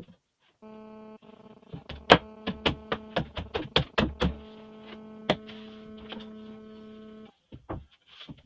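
A small electric motor hums steadily, starting just after the beginning and cutting off near the end. Over it comes a quick run of about a dozen sharp knocks, roughly three a second, with one more a little later.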